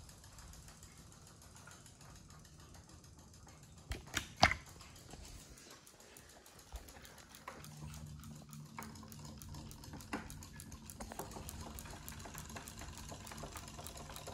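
Several Zuru Robo Fish toys' small battery motors ticking and buzzing rapidly as they wag the fishes' tails, with a steady low hum coming in after about seven seconds. A few sharp clicks, the loudest sounds, come about four seconds in.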